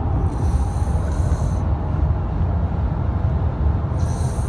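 Steady low rumble of a moving vehicle, with two short hissing sounds about four seconds apart, one near the start and one near the end.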